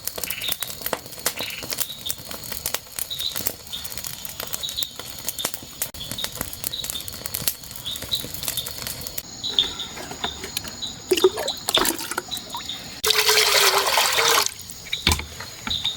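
Scattered clicks and knocks of handling, with faint short high chirps repeating throughout. About thirteen seconds in comes a loud burst of water splashing that lasts about a second and a half.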